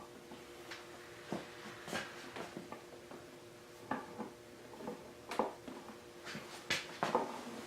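Irregular small clicks and taps of hands handling windshield screws and trim parts on a motorcycle fairing, over a faint steady hum.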